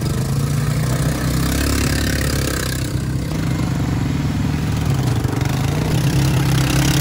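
Two ATV (quad bike) engines running at low speed, steady with small rises and falls in pitch as the quads pull through shallow water and onto sand.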